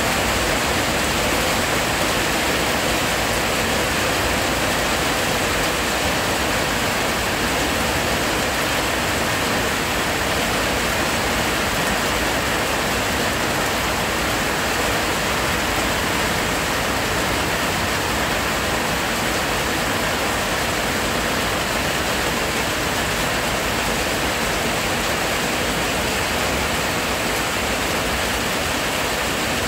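Loud, heavy rain falling steadily: a dense, even hiss of drops with no letup.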